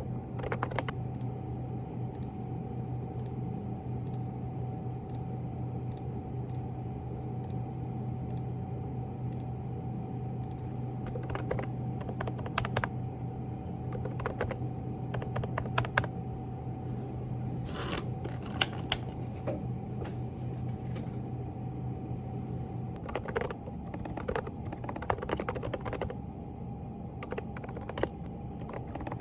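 Typing on a Groovestone GV10 mechanical keyboard with hand-lubed silent Coral 38 g switches: a steady run of soft keystrokes with a few louder strokes mixed in. A low steady hum sits underneath and stops about two-thirds of the way through.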